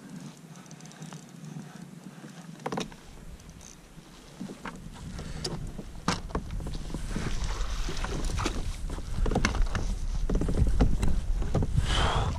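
Water sloshing and scattered knocks against a kayak as a lake trout is brought alongside and scooped into a landing net, over a low rumble that builds from about four seconds in and is loudest near the end.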